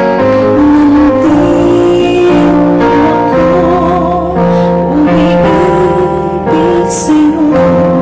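A woman singing a slow song into a handheld microphone over musical accompaniment, holding long notes with a wavering vibrato.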